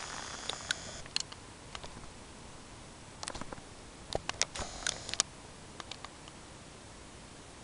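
Handling noise from a handheld video camera: scattered clicks and taps, with a brief whir at the start and again about five seconds in, over a steady hiss.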